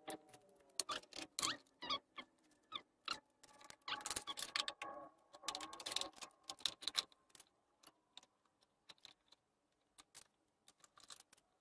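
Scattered light clicks and knocks of a metal speed square, a pencil and small wood pieces being handled on a wooden stool, with a faint steady hum under the first half.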